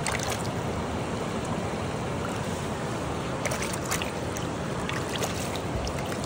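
Steady rush of shallow stream water, with sharp splashes and sloshes as a hand scoops and stirs water inside a landing net, the loudest a little past halfway.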